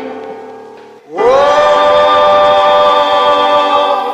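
Background music with singing: a held chord fades away, then about a second in a new chord slides up into pitch and is held.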